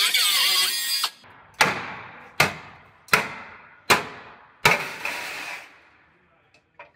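A cut-off wheel tool hisses and whines down during the first second. Then a hammer strikes the cut steel lower tie bar five times, about one blow every three-quarters of a second, each with a short metallic ring, knocking the bar free.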